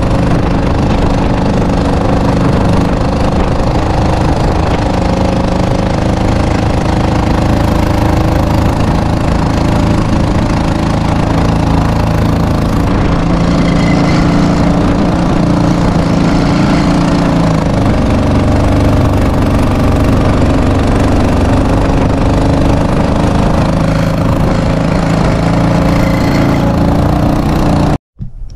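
Small gas engine of a Swamp Runner kit motor running steadily at cruising speed, about 9 mph, pushing a small plastic fishing boat, with water rushing along the hull. The pitch wavers slightly, and the sound cuts off suddenly near the end.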